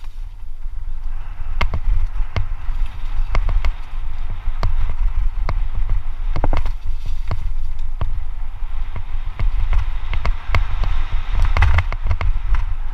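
Mountain bike descending fast on a dirt trail, heard from a helmet camera: wind buffets the microphone with a constant low rumble, the tyres rush over dirt and gravel, and frequent sharp clacks and rattles come from the bike as it hits bumps.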